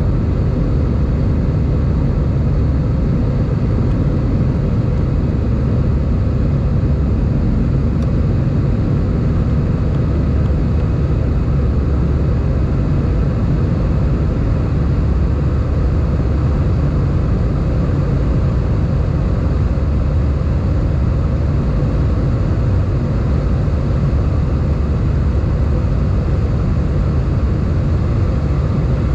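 Steady cabin noise inside an Airbus A320 airliner climbing after takeoff: an even, deep rush of jet engines and airflow heard from a window seat over the wing, with a faint steady hum and no change throughout.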